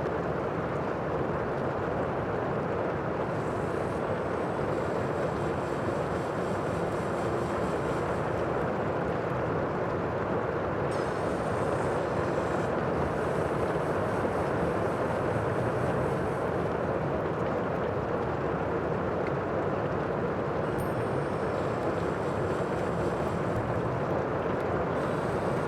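Steady sea noise: an even, unbroken wash of surf with no single wave break standing out.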